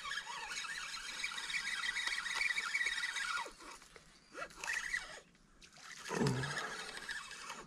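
Fishing reel being cranked, a steady fine ticking for about three and a half seconds as the rig is wound in to check the hook. After a lull, a shorter noise comes about six seconds in.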